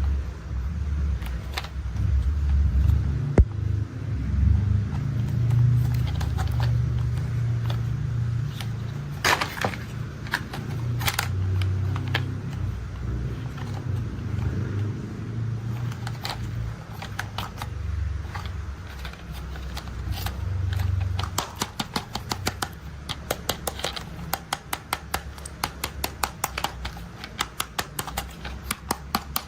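A low rumble with scattered sharp knocks, giving way about two-thirds of the way through to a fast run of short clicks, about three or four a second.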